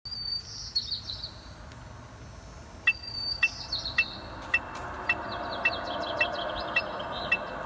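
An electronic metronome through a loudspeaker starts clicking about three seconds in. Each click is a short high beep, evenly spaced about every half second, roughly 110 beats a minute. A bird gives short high trilled calls twice, at the start and just before the clicking settles in.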